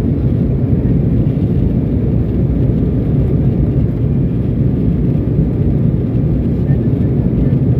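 Steady low roar inside the passenger cabin of an Embraer E175 in its climb after takeoff: the jet's turbofan engines and the rush of air over the fuselage, even throughout.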